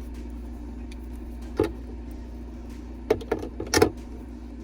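A few light clicks and knocks as small eyeshadow pots are handled and set into a makeup organizer: one about one and a half seconds in, then a cluster of clicks around three to four seconds in, over a steady low hum.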